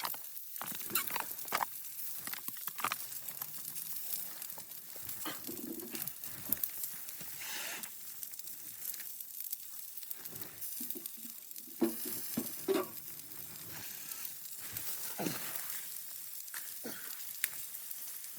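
Food frying and sizzling in a pan, with scattered clicks and scrapes as it is stirred.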